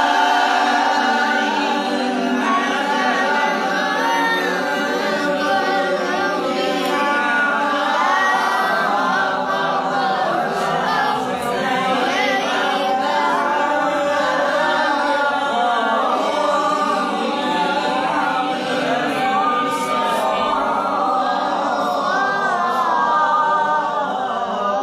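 A man reciting the Quran unaccompanied in maqam Hijaz: long, ornamented melodic phrases drawn out on single words, in the high (jawab) register of the maqam. The phrase ends at the very close.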